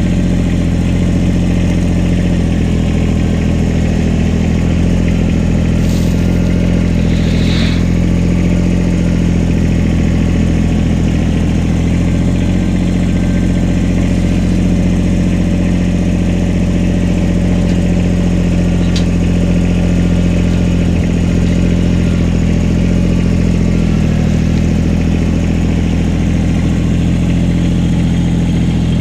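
Kubota BX25 compact tractor's three-cylinder diesel engine running steadily at a constant speed while its front loader levels soil and gravel, with a few brief clicks about six to eight seconds in.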